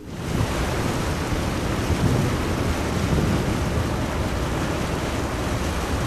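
Wind buffeting the microphone on an open ship's deck, mixed with rushing harbour water: a steady, loud noise with a heavy, uneven low rumble that starts suddenly.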